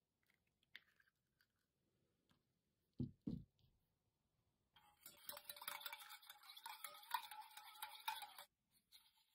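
Spring-coil wire whisk beating eggs in an enamel bowl: a fast, dense clinking rattle of the wire against the bowl for about four seconds, stopping shortly before the end. Earlier, two soft knocks about three seconds in.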